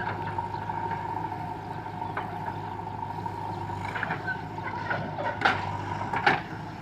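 Heavy diesel engine of earth-moving machinery running steadily, with a couple of short sharp knocks about five and six seconds in.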